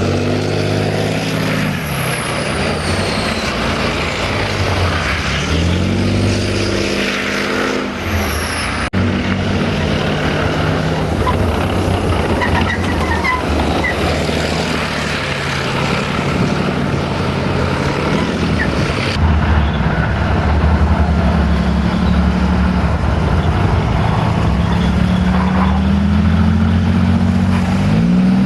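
Armoured military vehicle engines running and revving as the vehicles drive past, the pitch dropping about a second in and climbing again around six to eight seconds in and near the end. Sharp cuts about nine and nineteen seconds in switch between vehicles.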